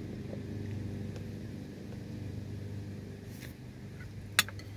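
A steady low hum, with a few faint ticks and one sharp click of a metal spoon against the plate near the end.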